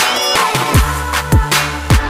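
Background music with a steady beat: deep bass-drum hits about every 0.6 seconds under a busy electronic backing.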